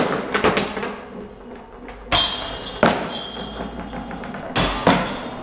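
Golf discs putted into a disc golf basket's chains, one after another: each hit is a sharp clank followed by a brief metallic jingle and ring of the chains, about seven hits in quick pairs and clusters.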